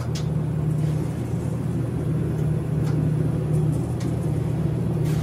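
Steady low hum from the running machinery of an open soda vending machine, with a few faint clicks.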